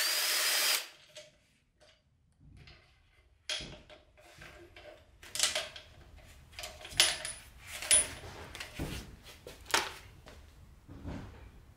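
Scattered metallic clicks and clinks of tools and engine parts being handled on top of an engine, a few ringing briefly. A short hiss cuts off under a second in.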